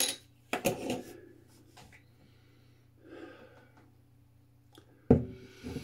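A person sniffing a glass of hazy pale ale in short, breathy bursts to take in its aroma, with a sudden louder sound about five seconds in.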